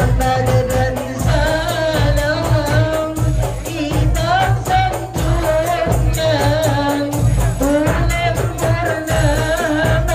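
Music: a singer's ornamented, wavering melody over a steady percussion beat.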